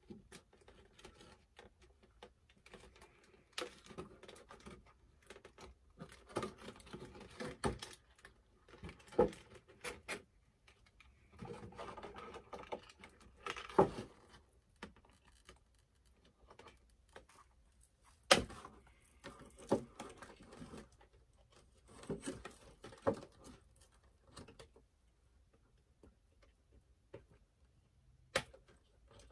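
Cardboard doll box and its packaging being handled and shaken out: irregular rustles, taps and clicks with short pauses, and one sharp click about two-thirds of the way through.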